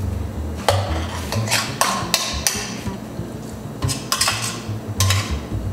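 Plastic food processor being opened and emptied: the lid and blade clack and scrape against the plastic bowl in a string of sharp knocks.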